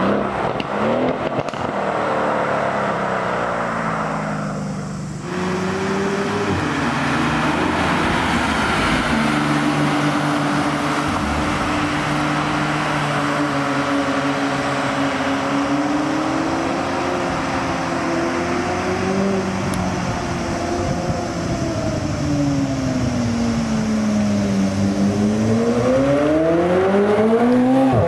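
Sports car engines driving past on a winding road. The pitch falls away over the first few seconds, then runs fairly level with small rises and dips. Near the end a McLaren 765LT's twin-turbo V8 dips and then climbs sharply in pitch as it accelerates closer.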